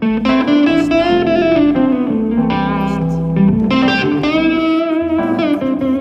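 Band music in an instrumental break between sung lines, led by an electric guitar playing bending lead notes.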